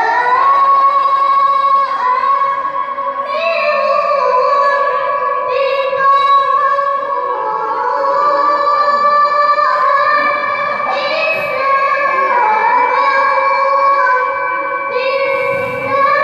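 A girl's voice reciting the Qur'an in tilawah style, chanted in a high register. She holds long, ornamented notes that step up and down in pitch, with a few short breaks between phrases.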